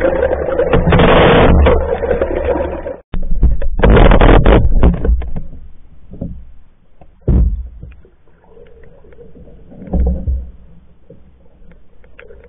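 Water churning and rushing over a submerged camera under a pack canoe, muffled, in heavy surges for the first five seconds, then settling to a low wash with two brief swishes.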